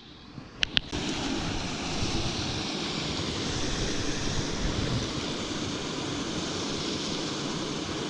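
Small creek's water running steadily, a constant rush of flowing water. Two sharp clicks come just before it, in the first second.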